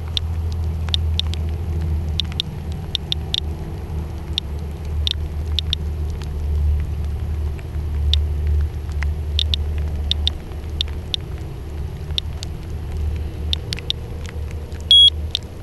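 Radiation Alert Inspector Geiger counter clicking at random intervals, about one or two clicks a second, as it totals counts over the ground. A steady low rumble runs underneath and is louder than the clicks, and a short high beep sounds near the end.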